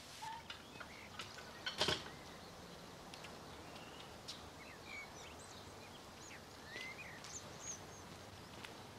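Small birds chirping over quiet outdoor ambience, with a sharp clack a little under two seconds in as a garden gate swings shut.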